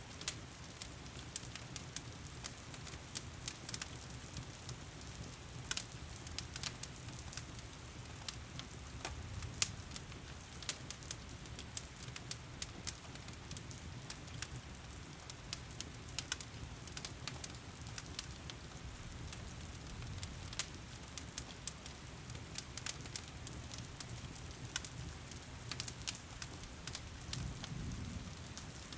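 Log fire crackling with many sharp pops and snaps over steady heavy rain, with a low rumble of the fire underneath.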